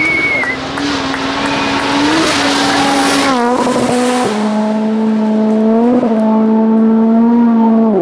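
Racing car engine at high revs, holding a steady note, with a dip about three seconds in and a step down to a lower steady note a second later. A brief high squeal comes right at the start.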